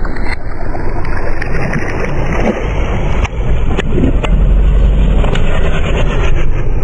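Car tyre rolling over wet asphalt and crushing water balloons, with water splashing and a few sharp cracks. A deep rumble grows heavier a little past halfway.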